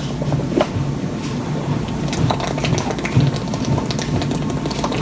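A person gulping water from a bottle in repeated swallows, about one a second, washing down a dry scoop of pre-workout powder.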